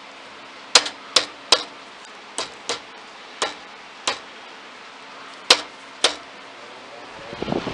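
Sharp taps on the thermostat of a Sears 8121, about nine of them at uneven spacing, knocking it to switch the motor on and off. A rushing noise rises near the end.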